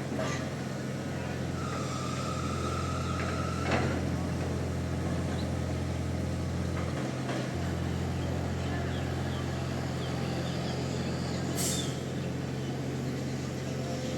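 Heavy construction machinery running steadily with a constant low engine hum. A high steady whine sounds for about two seconds near the start, ending with a sharp knock, and a short high hiss of released air comes near the end.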